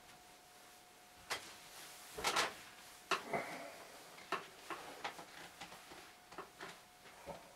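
Irregular knocks, clicks and rustling as a person sits down at a digital piano, the loudest cluster about two seconds in. A faint steady whine runs underneath.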